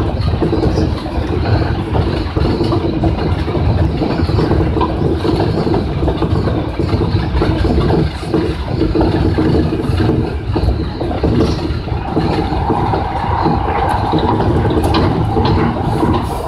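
Electric commuter train running along the track, heard from inside at the front: a steady rumble of wheels and running gear with a low hum. A higher steady whine joins about twelve seconds in.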